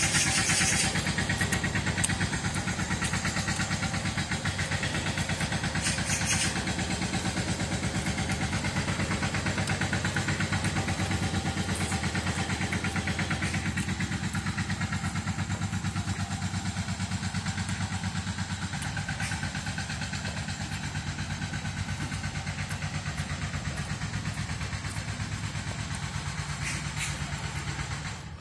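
Engine of construction machinery running steadily with a fast, even throb, stopping just before the end.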